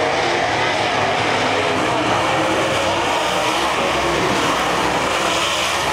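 A pack of dirt late model race cars running laps on a dirt oval, their V8 engines making a steady, dense drone with no single car standing out.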